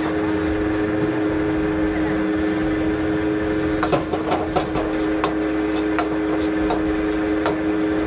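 A metal ladle clanking and scraping against a wok as a dish is stir-fried, a few sharp knocks spread through, over a steady mechanical hum.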